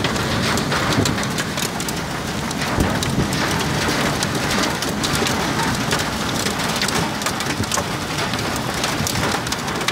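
Heavy rain falling steadily, with many sharp drop hits close by.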